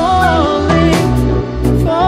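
Background music: a pop song with a sung melody over bass and a steady drum beat.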